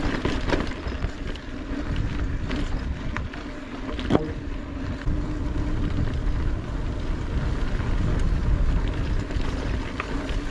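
Wind buffeting the microphone of a mountain bike ride on a dirt trail, with scattered clicks and rattles from the bike over rough ground and one sharper knock about four seconds in.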